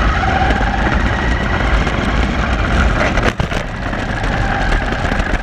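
RC car driving on asphalt, heard from a camera mounted on the car: a steady motor and drivetrain whine over a loud rumble of tyres and chassis, with a brief dip a little past halfway.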